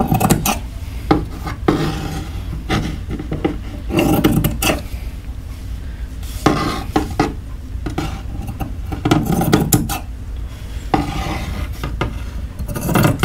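Scissors snipping slots into a dry fiberglass cloth disc, in several short runs of cuts, with the cloth rustling and rubbing on the table as it is handled and smoothed flat.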